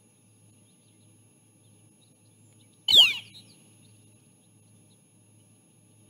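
Northern flicker giving a single loud, short call that slurs downward in pitch, about halfway in.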